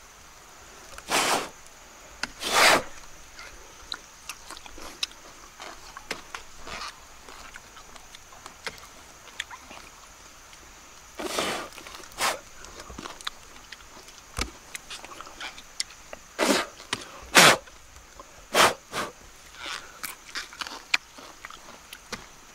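Hands digging and tearing through dry, rotten palm-trunk fibre: a constant light crackle and rustle, with about seven short, louder rasping rips spread through.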